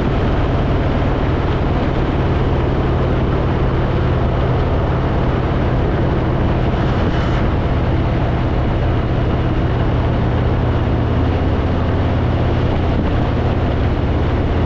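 Harley-Davidson Fat Boy's V-twin engine running steadily at cruising speed, with a constant rush of wind and road noise.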